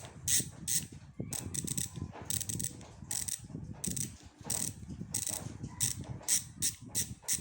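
Speedone Torpedo 8-pawl rear bicycle hub spun by hand, its freehub pawls clicking over the ratchet in repeated short runs of ticks. The buzz is loud and fine.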